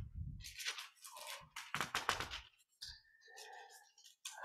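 Thin Bible pages being turned and rustled: a run of irregular papery crinkling strokes as the pages are leafed through looking for a passage.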